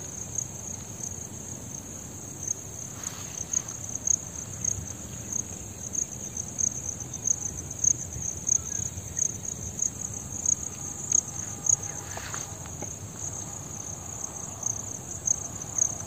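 Insect chorus at dusk: a steady, high, finely pulsing chirring of crickets, with a low rumble and occasional soft thumps underneath.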